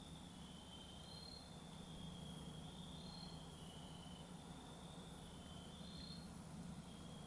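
Crickets trilling faintly: several long, overlapping trills at slightly different pitches, over a low steady hum.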